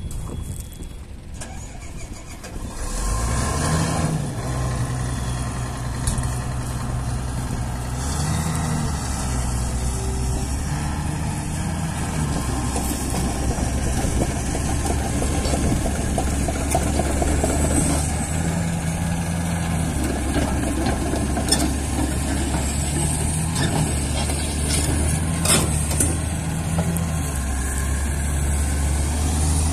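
Komatsu PC450LC excavator's diesel engine starting about three seconds in, then running steadily, its pitch stepping up and down as the boom and arm are worked. A couple of sharp knocks sound in the second half.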